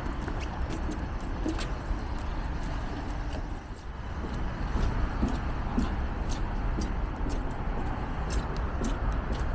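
City street ambience heard from a moving bicycle: a steady wash of traffic noise with a heavy low rumble, scattered light clicks and a few faint short calls.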